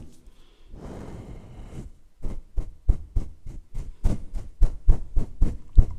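Close contact sounds on a microphone for ASMR: a soft swish about a second in, then a quick, even run of short knocks against the mic, about four a second.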